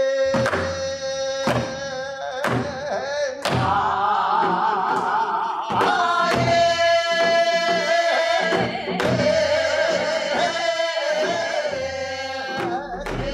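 Korean folk singing (minyo): sustained sung lines with a wide, wavering vibrato, accompanied by a barrel drum struck with a stick about once a second at first and more sparsely later.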